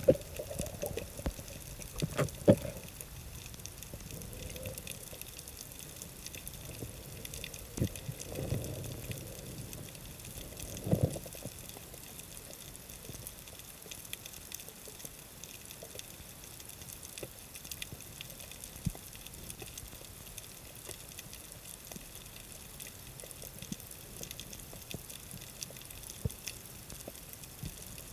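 Underwater ambience heard through a submerged camera: a steady faint hiss scattered with small clicks and crackles, with louder sloshing water noise and knocks in the first few seconds and again around ten seconds in.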